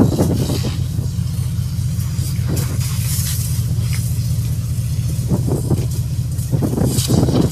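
A deck-wash hose spraying water onto a ship's steel deck: a hiss over a steady low rumble, with irregular louder rushes in the second half.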